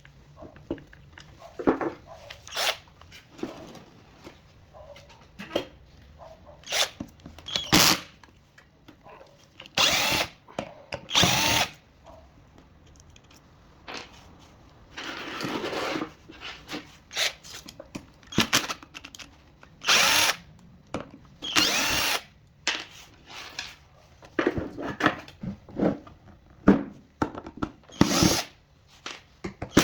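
Power drill-driver run in many short bursts of about a second each, with one longer run about halfway through, unscrewing the casing of a salvaged supercapacitor module.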